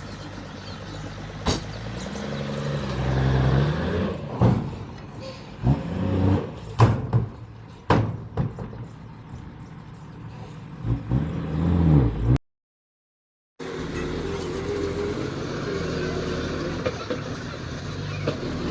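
Heavy diesel earthmoving machinery at work: the engine revs up and down under load, with sharp metallic clanks and knocks. About two-thirds of the way through the sound cuts out for about a second, then the engine runs more steadily.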